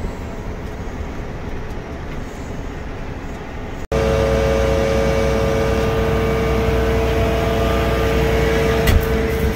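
John Deere 9620R tractor running steadily, heard from inside its cab. After a cut a little under four seconds in, a louder steady drone of heavy farm machinery with a constant whine and a deep rumble takes over, with one sharp click near the end.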